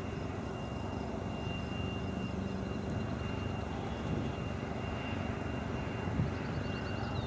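Distant jet aircraft engines across an airfield: a steady rumble with a thin, faint high whine.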